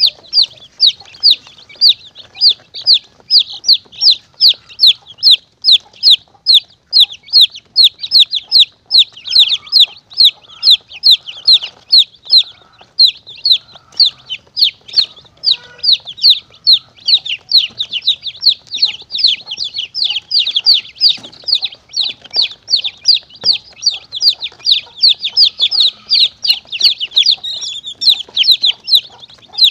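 Chicks peeping in distress: a dense, unbroken run of shrill, downward-sliding peeps at about three a second. It is a predator-caller recording used to lure monitor lizards and mongooses.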